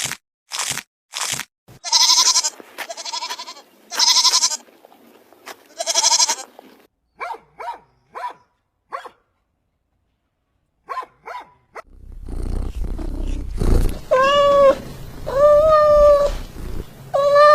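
A run of different animal calls: a few short clicks at the start, then four loud wavering calls, a few faint short ones, and near the end three strong pitched calls over a low rumble.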